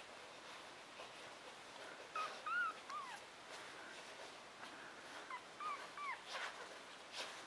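Newborn hairless Chinese Crested puppy, one week old, squeaking and whimpering in two short bouts of high, arching squeaks: one about two seconds in and another about five seconds in. A couple of faint clicks come near the end.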